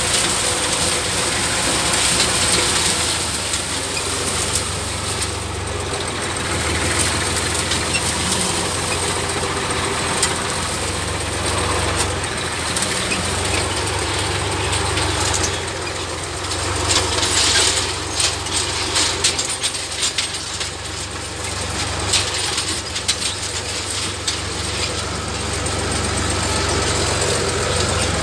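IMT 539 tractor's three-cylinder diesel engine running steadily, with bursts of mechanical rattling about two-thirds of the way through.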